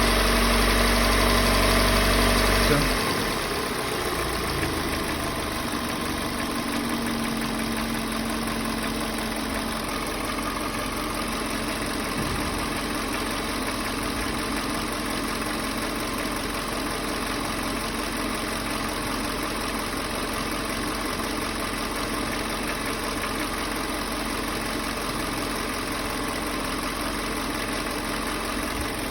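Hyundai/Kia G4NA 2.0-litre four-cylinder petrol engine running at raised revs for about three seconds, then dropping back to a steady idle. It keeps a knock even though its scored cylinders have been bored out.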